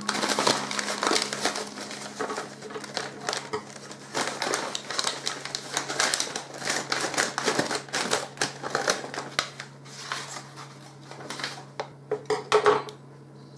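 Kraft paper bag crinkling and rustling as it is handled and opened, a dense run of quick crackles and taps with a louder burst near the end.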